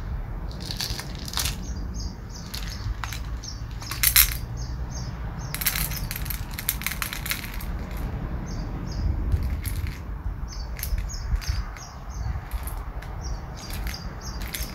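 Caustic soda flakes rattling and clicking as they are shaken from a plastic tub into a small plastic dish on a pocket digital scale. The flakes fall in irregular spills, with a longer run of rattling about halfway through.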